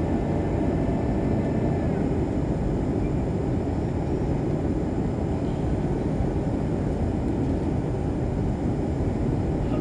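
Steady low roar of a Boeing 737-800 in flight, its CFM56 engines and the airflow heard from inside the cabin, with no touchdown thump.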